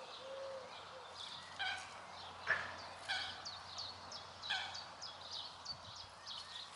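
Birds calling: a call with several stacked tones comes three times, about a second and a half apart, among quick high chirps from small birds. A single sharp click or knock sounds about two and a half seconds in.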